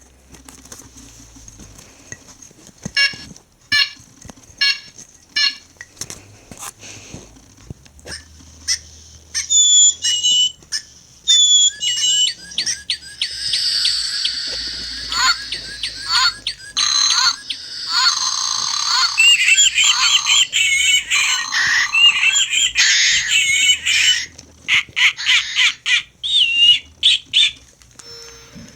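Recorded bird calls from several Audubon Wild Republic plush toy birds, played through their small built-in speakers. A few short chirps and clicks come first, then from about ten seconds in many calls overlap into a dense chorus that thins out near the end.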